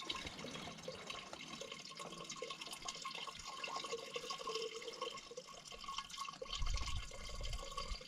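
Liquid trickling and dripping in a steady patter of small splashes. A brief low rumble comes about six and a half seconds in.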